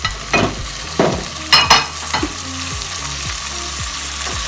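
Diced tomato, onion and garlic sizzling in hot oil in a nonstick wok while a spatula stirs them. A few sharp knocks and scrapes of the spatula against the pan come in the first two seconds, and the sizzle grows slightly louder toward the end.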